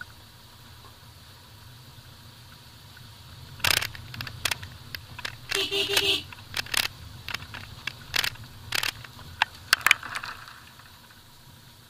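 Maruti Suzuki Vitara Brezza driving slowly over a rough gravel and dirt track, with a steady low engine and road hum. From about four to ten seconds in, a run of sharp crunches and knocks comes from stones and bumps under the tyres and suspension.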